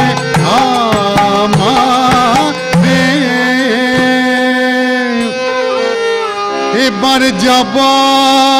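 Bengali devotional kirtan: a male voice sings a long, drawn-out melodic phrase with harmonium and violin holding the tune beneath it, and strokes of a barrel drum in the first few seconds and again near the end.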